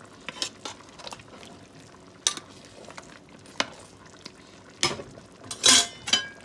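Metal spoon stirring a thick okra sauce in a pot, with scattered clinks of the spoon against the pot's side. There are a few louder clanks and scrapes near the end.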